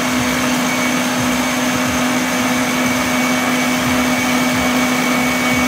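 Stand mixer motor running steadily at high speed, its whisk beating egg yolks as hot sugar syrup is poured in, with a constant hum.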